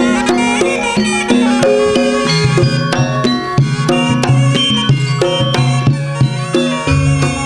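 Traditional Madurese-style ensemble music for a kuda kencak dancing-horse show: a wavering wind melody over a dense run of hand-drum strokes and sustained low gong-like notes.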